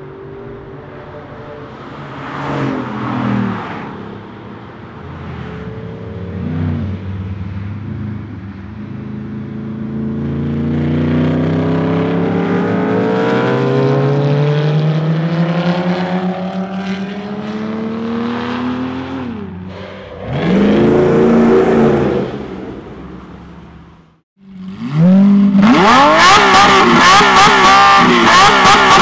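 Sports cars, among them a Spyker C8 with its Audi-sourced 4.2-litre V8, accelerating past at full throttle; one engine note climbs steadily for several seconds, then a loud pass rises and falls in pitch. Near the end the sound cuts out briefly, and a loud passage of several rising and falling tones follows.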